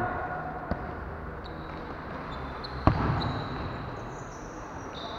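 Futsal play in a large echoing hall: a ball is struck with a loud, sharp thud about three seconds in, after a lighter knock near the start, with short high squeaks of shoes on the court in between.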